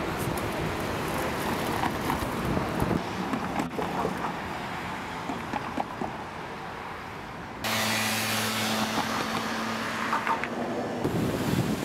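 City street traffic: cars driving past a crosswalk. About eight seconds in the sound changes abruptly to a quieter scene with a steady low hum, and about three seconds later it changes back to busier traffic.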